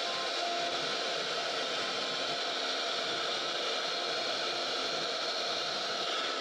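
CNC router spindle running with its bit cutting relief carving into a wooden panel: a steady, even machine noise with faint steady tones under it.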